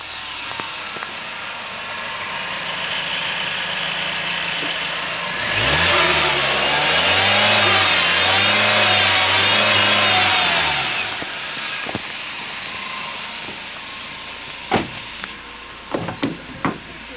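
LDV G10's turbocharged 2.0-litre four-cylinder petrol engine running, a used engine under test that the seller rates as good. It runs steadily at first, then is revved several times, its pitch rising and falling, and settles back to idle. A few sharp clicks come near the end.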